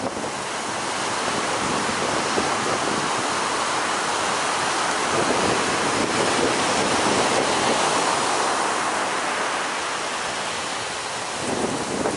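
Big ocean surf breaking and whitewater rushing, a steady dense wash of noise with wind buffeting the microphone. It builds over the first couple of seconds and eases slightly near the end.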